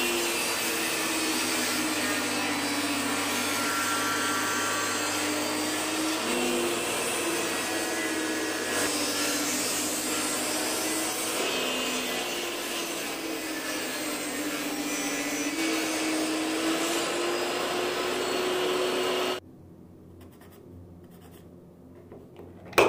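Benchtop table saw running and cutting a facet into a thick laminated wooden clock blank, the motor's whine sagging in pitch as the blade bites into the wood and recovering. The sound cuts off suddenly near the end, and a single sharp knock follows.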